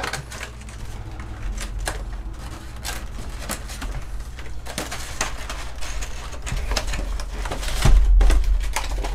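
Cardboard collector box with a plastic window being picked up and handled: scattered taps, rustles and knocks, with a heavier bump about eight seconds in.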